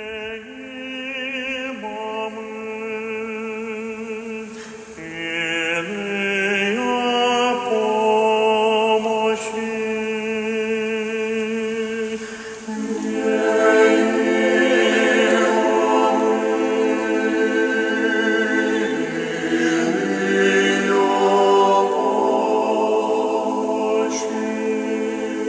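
A choir singing an Orthodox chant a cappella, the voices holding long notes and moving in steps. It starts from near quiet and grows louder about halfway through.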